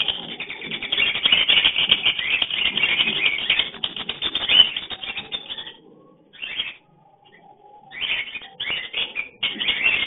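Lovebirds chattering in a rapid, scratchy run of clicks and chirps. The chatter breaks off about six seconds in and comes back in short bursts near the end.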